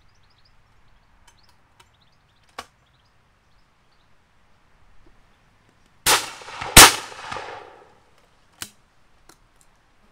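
Blaser F16 12-bore over-and-under shotgun fired twice in quick succession, under a second apart, the second shot the louder, each echoing briefly. The action clicks shut a couple of seconds in, and a sharp click follows the shots.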